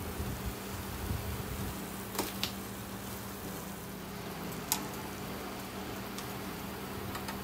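Sata andagi donuts deep-frying in hot oil, a steady sizzle under a steady low hum, with a few sharp clicks about two seconds in and again near the middle.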